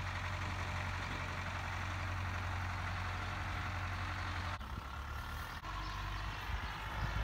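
A vehicle engine running steadily with a low, even hum. About four and a half seconds in, it cuts to a rougher low rumble.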